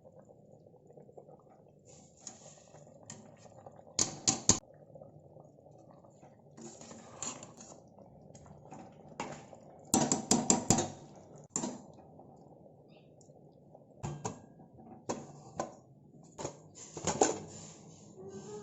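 Metal utensils clinking and scraping against a cooking pot in scattered clusters of sharp knocks. The loudest clusters come about four seconds in, around ten seconds in and near the end.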